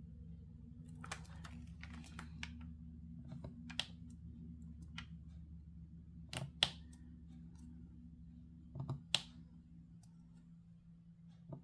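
Scattered light clicks and taps of a diamond-painting drill pen picking up small resin drills from a tray and pressing them onto the canvas, a few of them sharper, over a steady low hum.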